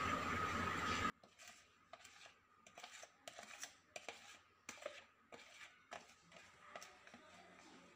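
A steady background hum with hiss that cuts off abruptly about a second in. Then faint, irregular light clicks of a metal spoon against glass as whipped coffee foam is spooned onto a glass of milk.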